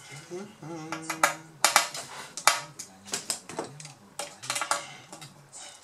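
Sharp clicks and taps of hands and a screwdriver on a laptop's plastic display lid and metal hinge, a handful of loud ones from about a second and a half in, over a faint low hum.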